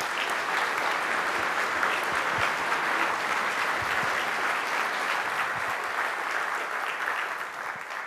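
Lecture-hall audience applauding steadily, the clapping dying away near the end.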